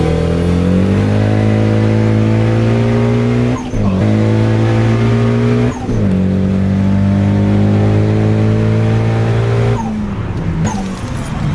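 Turbocharged 1994 Acura Integra LS four-cylinder engine under hard acceleration, heard from inside the cabin. Its pitch climbs, drops sharply at upshifts about four and six seconds in and climbs again each time, then falls away as the throttle is lifted about ten seconds in.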